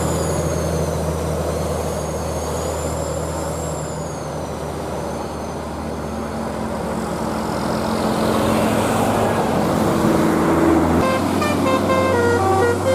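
A bus engine running with a steady low hum that grows louder toward the end. About eleven seconds in, a multi-tone Basuri 'telolet' horn starts playing a tune of quick stepped notes.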